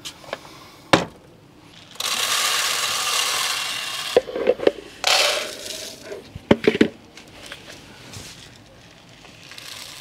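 Mixed bird seed poured into a clear plastic feeder tube: a rattling hiss lasting about two seconds, then a shorter pour. Sharp plastic clicks and knocks follow as the feeder is handled and fitted.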